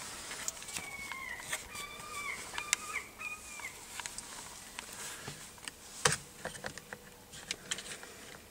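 A dash cam and its suction-cup mount being handled and pressed onto a car windscreen: a run of clicks and knocks, the sharpest about six seconds in. Several short squeaky pitched tones come in the first half.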